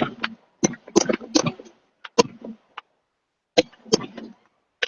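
A run of irregular sharp knocks and clicks, about a dozen in a few seconds, with a short pause in the middle.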